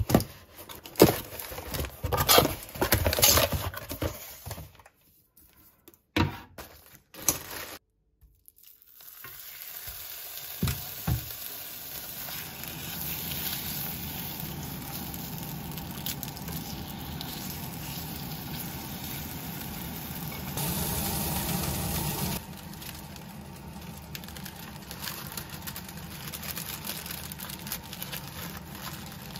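Beef steak searing in oil in a frying pan: a steady sizzle that sets in about ten seconds in and runs on, briefly louder for a couple of seconds past the twenty-second mark. Before it, a few sharp knocks and rustles, then a short near-silent gap.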